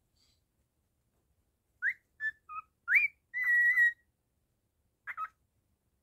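Cockatiel whistling a short tune. After a couple of seconds there are a few quick notes, some rising and some clipped, then one held note, and a final short note about a second later.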